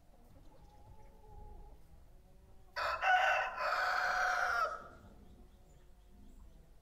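A rooster crows once, a single cock-a-doodle-doo of about two seconds in several joined syllables, starting a little before the middle.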